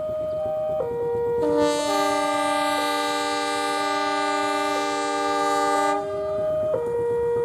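CC 203 diesel locomotive's multi-note air horn sounding one long chord of about four and a half seconds, starting about a second and a half in, over a two-tone warning signal that steps between a lower and a higher pitch about once a second.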